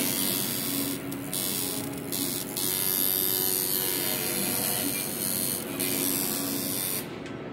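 Tattoo machine buzzing steadily as the needle works over the skin, dipping briefly near the end.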